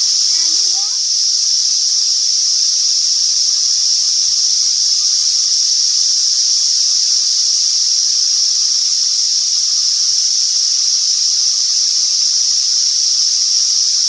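Loud, steady chorus of cicadas: a constant high shrill with an even, lower whine beneath it, unbroken throughout.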